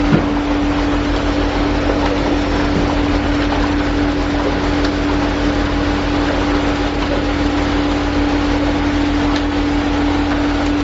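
Machinery of an automatic small-fish frying line running: a steady mechanical hum with one constant tone over a dense factory din, with a brief knock just at the start.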